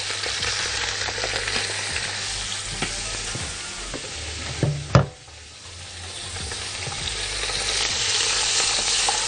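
A whole chicken sizzling as it browns in hot butter and a little oil in a large pot. A sharp knock about five seconds in, after which the sizzling drops for a moment and then builds back up.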